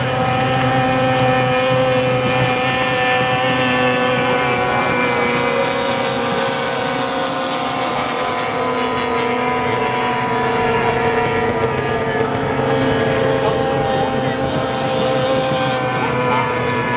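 Outboard engines of racing boats running at full speed in a steady, high-pitched drone. The pitch sags slowly through the middle and climbs again near the end.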